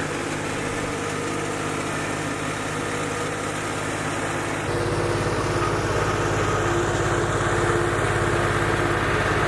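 New Holland LS185B skid steer's diesel engine running steadily as the machine creeps along with a pallet of brick on its forks; about halfway through it gets louder, with more low rumble, as the machine comes up close.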